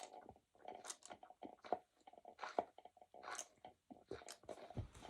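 A person chewing food close to the microphone, with irregular short bites and mouth smacks.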